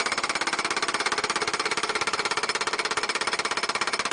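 A machine running with a rapid, even hammering beat of more than ten strokes a second.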